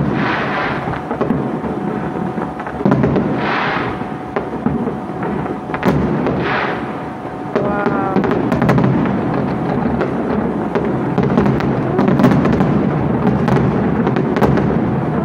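Fireworks going off: aerial shells bursting with hissing crackle every few seconds, then a dense run of rapid bangs and crackling from about halfway through as the display builds to many bursts at once.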